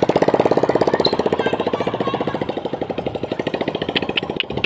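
A vehicle's engine running with a fast, even beat, slowly growing a little fainter.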